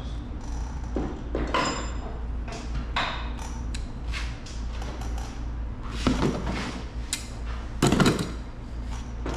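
Motorcycle clutch plates being handled and fitted onto the clutch basket: light metallic clinks and knocks at irregular intervals, one with a short ring, the loudest near the end, over a steady low hum.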